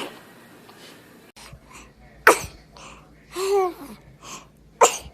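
A baby sneezing twice, each a short sharp burst, about two and a half seconds apart, with a brief voice in between.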